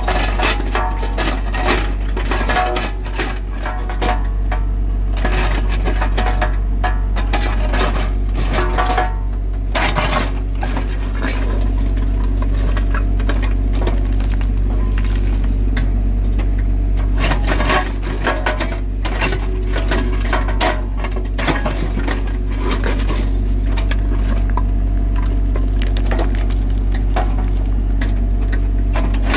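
Mini excavator digging: its diesel engine runs with a steady low hum while the steel bucket scrapes and scoops broken rock and soil, with stones clinking and knocking against the bucket and pavement throughout.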